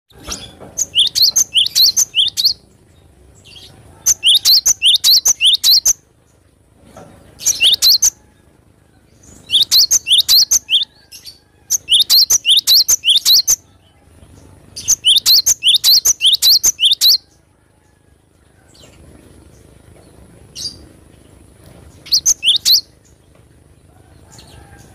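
Cinereous tit (gelatik batu) singing: about seven loud phrases of rapidly repeated high notes, each phrase lasting one to two seconds, with short pauses between them.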